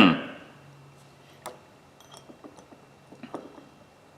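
The tail of a cough dying away, then a few faint, scattered light clicks of small metal ratchet parts being handled during reassembly.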